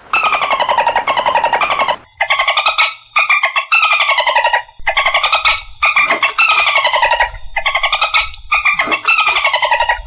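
Dolphin calls: a run of buzzy, rattling squawks, each falling in pitch, coming one after another with short breaks between them.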